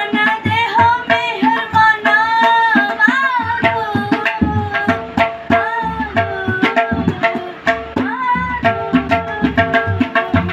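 Tabla playing a steady rhythmic accompaniment, sharp strokes on the small right-hand drum and deep bass strokes on the left-hand drum, under a young male voice singing a Sikh devotional hymn (shabad) in long, gliding melodic phrases.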